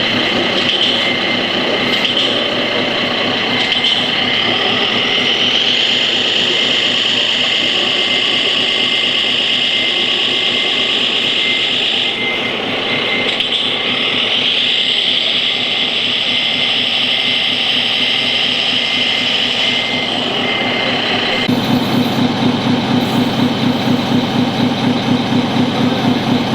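Radio-controlled scale model trucks running: a steady motor-and-gear whine that twice rises in pitch as the models speed up. About 21 seconds in, a louder, evenly pulsing engine-like chug starts up.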